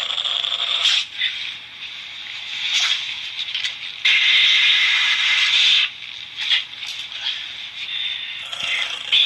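Bursts of static-like electronic noise, a hissing crackle that switches on and off abruptly. It runs for about a second at the start, gives a short burst about three seconds in, holds loudest for about two seconds in the middle, and starts again near the end.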